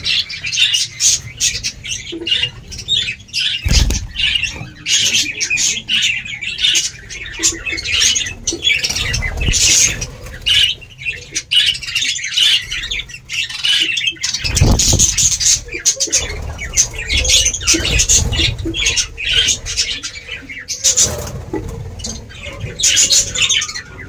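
Budgerigar colony chattering: many budgies warbling and squawking in quick, overlapping calls.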